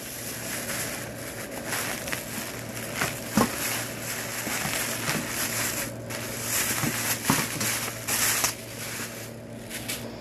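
Plastic bags crinkling and rustling in irregular crackly bursts as a bag of raw shrimp is handled and unwrapped, with a faint steady hum underneath.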